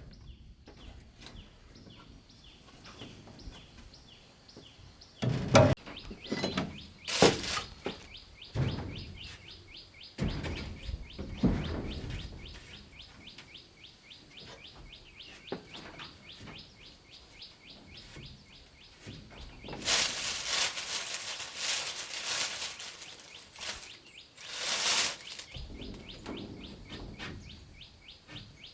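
A bird keeps up a rapid, evenly repeated high chirping throughout. It is broken by several loud knocks and longer noisy bursts of rustling or scraping about halfway through and again near the end.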